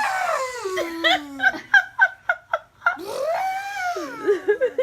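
A person's voiced imitation of an elephant trumpeting: a long call that rises and then slides down in pitch, a run of short giggling bursts, then a second rising-and-falling call.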